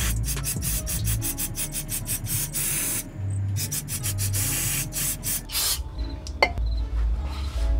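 Aerosol brake cleaner spraying onto the engine block, first in a quick run of short spurts, then in two longer blasts, about two and four seconds in. Background music with a steady bass line plays underneath.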